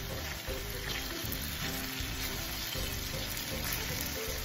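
Potato and carrot chunks frying in oil in a pan, a steady sizzle, with a wooden spatula stirring them.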